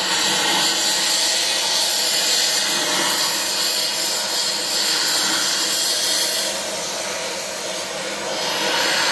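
Oxy-acetylene cutting torch's preheat flame hissing steadily against a steel plate as it warms the weld before cutting oxygen is added. The hiss eases off slightly about seven seconds in, then picks back up.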